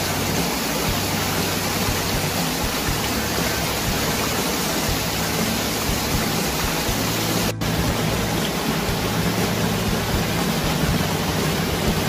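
Water pouring into a concrete drain basin, a steady rushing churn that briefly cuts out about seven and a half seconds in.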